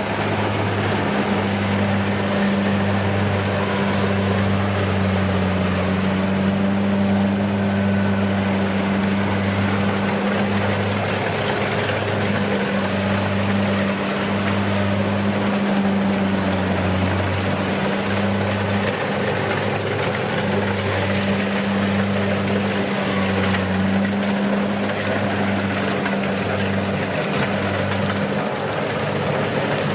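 Diesel engine of a combine harvester running steadily, its low hum throbbing at regular short intervals over a broad mechanical noise.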